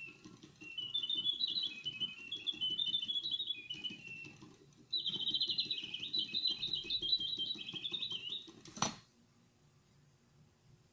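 Frères Rochat singing bird box (c. 1815): its automaton bird whistles warbling chirps and fast trills, with the low whirr of the clockwork mechanism underneath. The song breaks off briefly about four seconds in, then resumes. Near the end the bird retracts and the lid shuts with a sharp click, and the mechanism stops.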